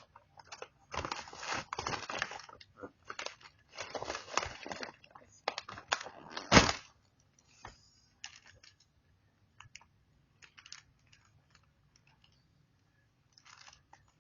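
Plastic packaging crinkling and rustling in repeated bursts as a squishy toy is handled and unwrapped, with one loud sharp crackle about six and a half seconds in. After that come only a few faint clicks and short rustles.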